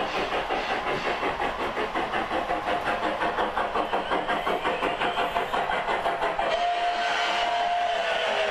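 Model Hudson steam locomotive's chuffing sound at a quick, steady beat. About six and a half seconds in, a steam whistle sounds and holds for about two seconds, dipping slightly in pitch at the end.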